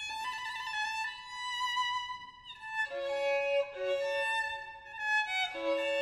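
Background music: a violin playing slow, held notes, the early ones wavering with vibrato.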